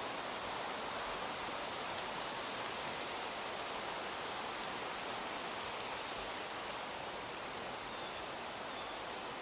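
Steady, even rushing noise of outdoor ambience, with no engine or train sound in it, and a faint bird chirp near the end.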